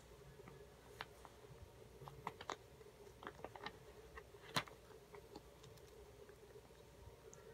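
Faint, scattered clicks and taps of a cat licking, nibbling and pawing at a chewing gum pack and paper, the loudest about halfway through, over a faint steady hum.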